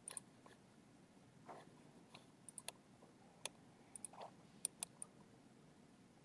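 Faint computer mouse clicks, scattered and irregular, some in quick pairs, over quiet room tone.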